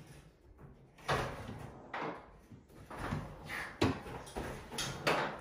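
About half a dozen sharp knocks and thumps, irregularly spaced, with short gaps of near quiet between them.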